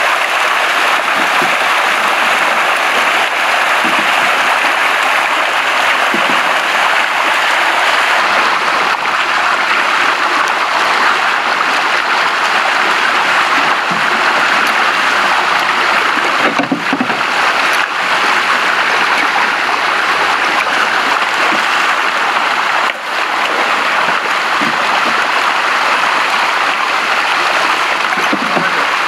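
Dense, steady splashing and churning of water as a crowded shoal of milkfish thrashes in a seine net.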